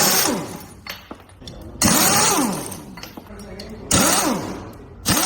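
A power tool run in short bursts, about one every two seconds, each burst rising and then falling in pitch as it speeds up and winds down.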